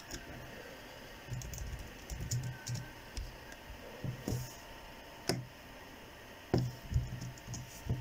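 Computer keyboard keys clicking in short irregular runs as code is typed, with a few sharper single clicks.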